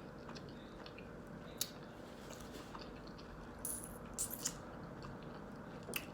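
A person chewing a breakfast sandwich with mouth closed, with soft wet mouth clicks and smacks, a few sharper ones about a second and a half in, around the four-second mark and near the end.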